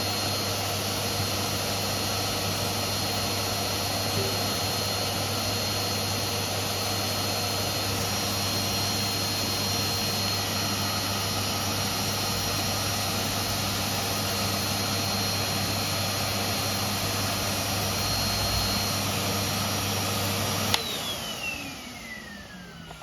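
Vacuum cleaner running steadily with a constant hum and whine. Near the end it is switched off and the motor winds down, its whine falling in pitch as it fades.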